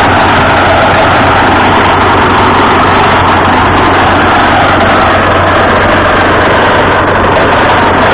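Truck-mounted borewell drilling rig running while it drills a borehole: loud, steady machine noise with a constant low hum underneath.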